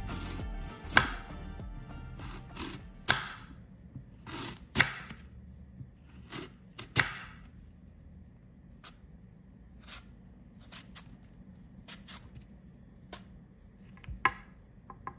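Kitchen knife slicing through a raw apple on a wooden cutting board, testing the freshly sharpened edge. There are four crisp cuts, each ending in a knock of the blade on the board, in the first seven seconds, then lighter, quicker cuts of thin slivers, with one sharper knock near the end.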